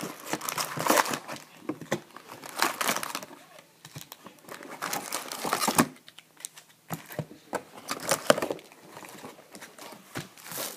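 Plastic wrapping on a box of trading card packs crinkling and tearing as it is opened, in irregular bursts with short pauses.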